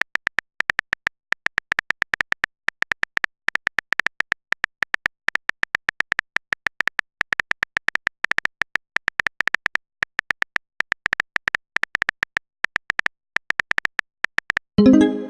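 Phone-keyboard typing sound effect: a rapid, uneven string of short high beeping clicks, several a second, as a text message is typed. Near the end a short pitched message alert sounds.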